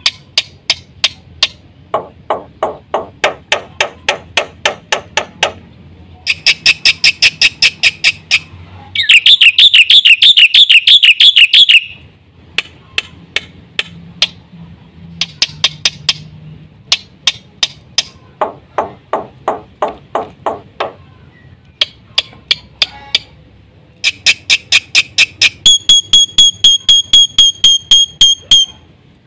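Jalak putih (black-winged myna) singing: long runs of rapid, evenly repeated sharp chattering notes, broken by a loud fast warbling trill about a third of the way in and a run of high whistled notes near the end.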